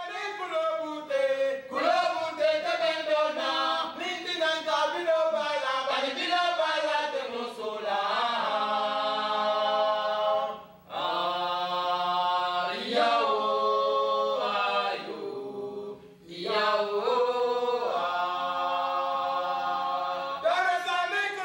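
Unaccompanied singing voices, a cappella chant with long held notes. The singing breaks off briefly about 11 seconds in and again about 16 seconds in.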